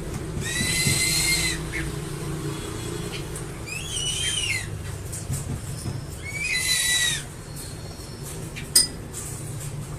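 Crested eagle calling: three high, whistled calls about three seconds apart, each lasting under a second, with the pitch arching and then falling away. A single sharp click comes near the end, over a steady low rumble.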